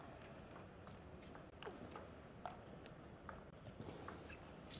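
Table tennis ball being struck by the rackets and bouncing on the table in a rally: a series of sharp clicks from about a second and a half in, the loudest near the end. Three short, high squeaks are heard over it.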